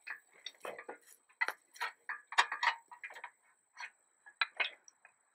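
Irregular metallic clicks and taps, about a dozen spread over five seconds, as a wrench and the lower bolt are worked against the auger's bit coupling to get the bolt out.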